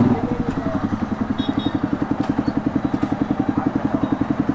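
Motorcycle engine idling with an even, rapid beat of about ten pulses a second.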